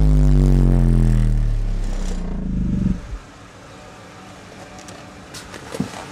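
Bass test sweep falling toward 20 Hz, played loud through two Rockford Fosgate P3 15-inch subwoofers inside a Ford Explorer, a low tone with a stack of overtones gliding down together. The sweep stops about three seconds in, leaving a faint low rumble and a few sharp clicks near the end.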